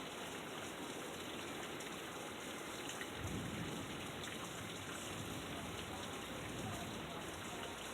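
Steady rain falling, an even hiss, with a brief low rumble about three seconds in.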